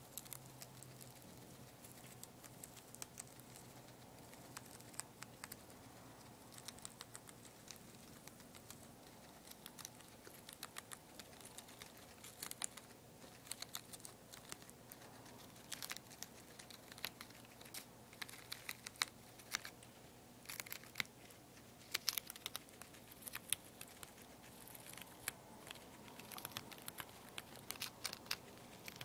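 A young guinea pig chewing and tearing a lettuce leaf: rapid, irregular crisp crunching clicks, busier and louder in the second half.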